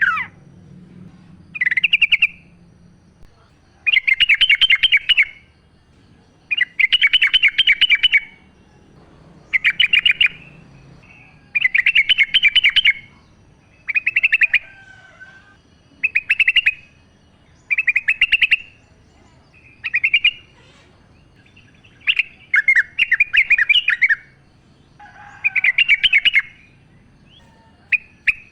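Yellow-vented bulbul singing loudly, repeating a short phrase of rapid notes about every two seconds.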